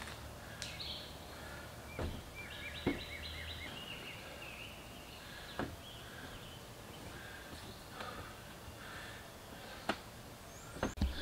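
Woodland birds chirping and singing, with one quick run of repeated notes a couple of seconds in. A few sharp knocks come from a man climbing aboard a boat on its trailer.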